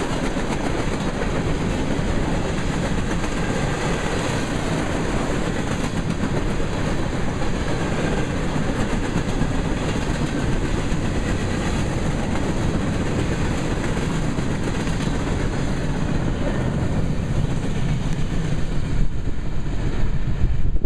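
Freight train of grain hopper cars rolling past on the rails: a steady, loud running noise of wheels on track that thins in its upper range near the end.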